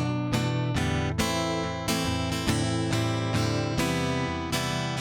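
Acoustic guitar strumming chords in a steady rhythm, the instrumental break of a slow ballad between sung lines.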